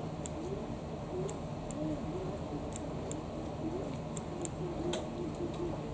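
Scattered light plastic clicks, about a dozen, irregularly spaced, from an old dishwasher door microswitch being clicked by hand and handled during a multimeter test. The switch feels limp and tests faulty.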